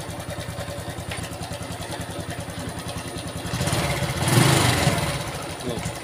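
Honda Revo FI single-cylinder engine idling with a rough, rattling 'krecek-krecek' noise from the left side of the engine. It grows louder for a couple of seconds past the middle, then settles. The mechanic puts the rattle down to a worn, stretched cam chain tensioner.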